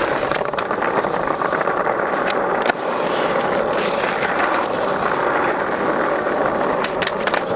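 Skateboard wheels rolling steadily over pavement, with a few sharp clicks and knocks from the board.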